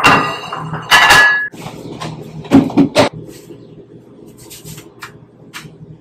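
Ceramic plates and bowls set down on a stone countertop: two sharp clinks with a short ring near the start, then a few softer knocks and light handling. A low steady hum runs underneath.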